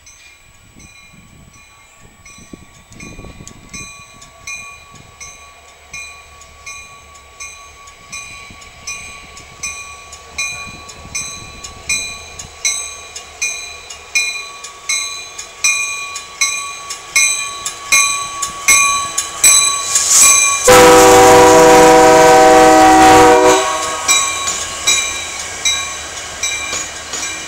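Union Pacific locomotive approaching with its bell ringing in a steady rhythm, growing louder as it nears. About three-quarters of the way in it sounds one loud horn blast of about three seconds, and the bell keeps ringing afterward.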